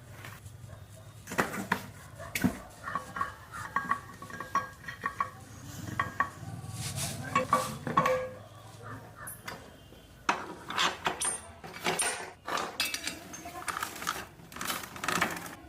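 Irregular metallic clinks and clanks: sharp knocks of metal on metal, some ringing briefly, in clusters throughout.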